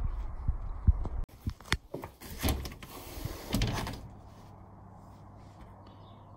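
Phone microphone rumbling and knocking as the phone is moved around by hand, with a few sharp scrapes and clunks through the first four seconds. After that it settles to a quiet, steady low hum.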